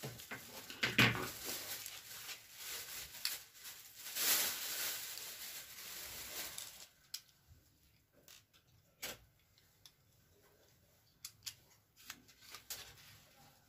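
Handling noise from a small white plastic electric-blanket controller housing being picked up and fitted over its circuit board: irregular rustling and scraping of plastic and cables for about seven seconds, then a few separate light clicks.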